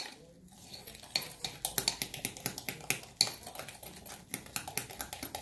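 Homemade kinetic sand mixture being mixed in a bowl: a run of irregular clicks and scrapes against the bowl.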